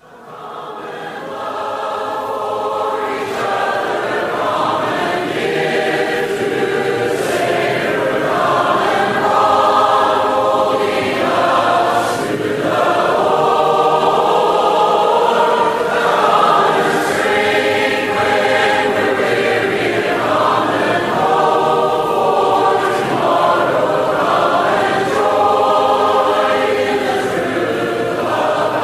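Choir singing a hymn unaccompanied, in the a cappella style of the Churches of Christ, fading in over the first two seconds.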